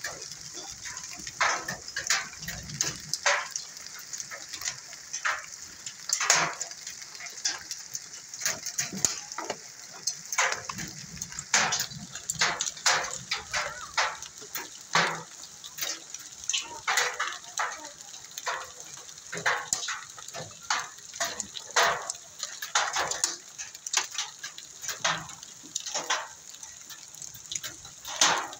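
Hailstorm with heavy rain: a steady hiss of rain with irregular sharp cracks of hailstones striking, a few a second.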